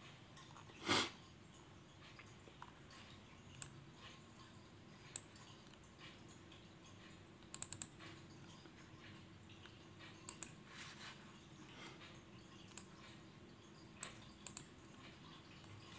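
Computer mouse button clicking: scattered single clicks and quick double or triple clicks a second or more apart, over faint room tone with a low steady hum. A short breathy whoosh about a second in is the loudest sound.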